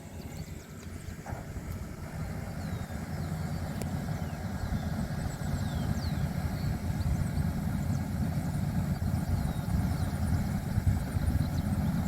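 Rice combine harvester engine running with a steady low rumble that grows louder over the first several seconds and then holds.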